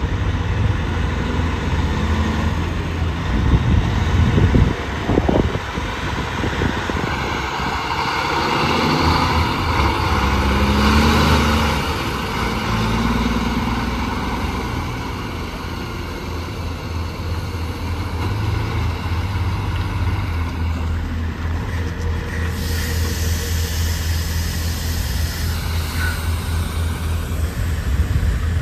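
Road traffic with trucks passing: a steady low rumble, with one vehicle growing louder and then fading about ten to twelve seconds in.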